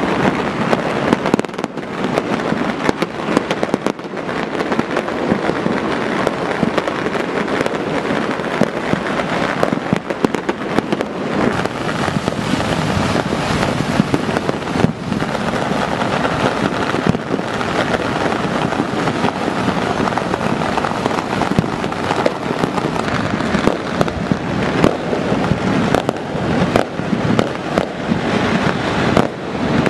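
Many fireworks going off at once all over a city: a dense, continuous crackle of overlapping pops and bangs with no pause.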